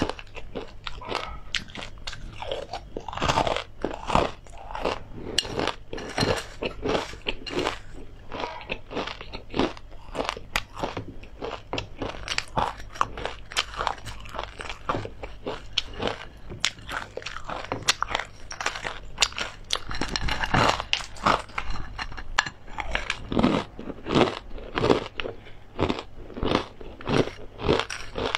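Close-miked crunchy chewing of fried seeds and chili crisp: a dense, rapid run of crisp crunches, several a second.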